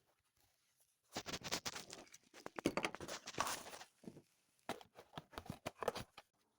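Footsteps walking, a quick run of crunching steps that pauses briefly in the middle and then carries on.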